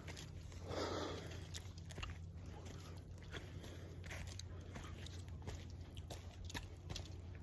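A hiker's footsteps scuffing and crunching on a forest trail while climbing a steep incline, with irregular sharp clicks throughout. One heavy, breathy exhale comes about a second in.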